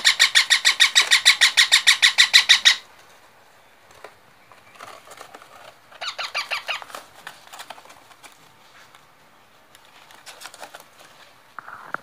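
Parakeets calling in a fast, even run of repeated notes, about eight a second, that stops a little under three seconds in. A shorter run follows about six seconds in, and fainter notes come near ten seconds.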